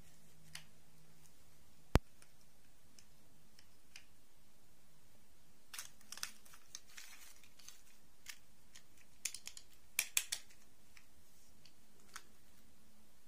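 Small plastic dolls being handled and set down on an artificial grass mat: scattered light clicks, taps and rustles. One sharp click about two seconds in is the loudest, with a few quick runs of taps later on.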